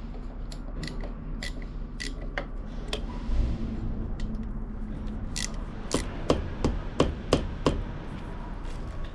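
Hand tools clicking and tapping against metal engine parts, a series of sharp, irregular clicks that come thickest and loudest in the second half. About three seconds in there is a short hiss of WD-40 being sprayed around a stuck part to loosen it.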